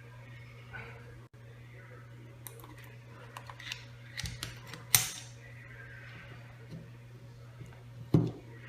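Metal parts of a crimping tool being handled and fitted back together: a run of light clicks and taps, a sharp knock about five seconds in and another near the end, over a steady low hum.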